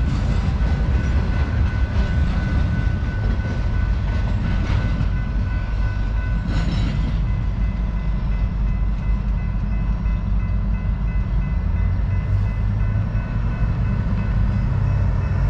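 Intermodal freight train cars rolling steadily past at close range: a heavy, unbroken rumble of wheels on rail, with thin, steady high-pitched tones running over it.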